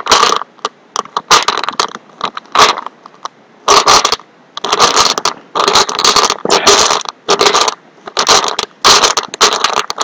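Jelly beans and their plastic box being rummaged through close to the microphone: irregular bursts of rustling, clicking and crackling with short pauses.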